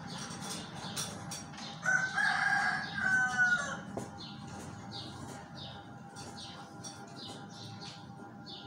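A rooster crows once about two seconds in, a single call lasting about two seconds. Small birds chirp over and over after it.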